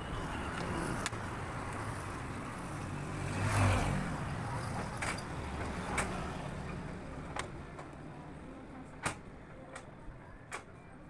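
Road traffic: a vehicle passes, swelling to its loudest about three and a half seconds in and then fading. Several short sharp knocks are scattered through it.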